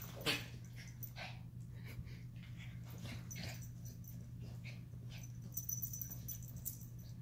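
Dog making short, irregular breathy noises while play-wrestling with a kitten, over a steady low hum. Bedding rustles toward the end.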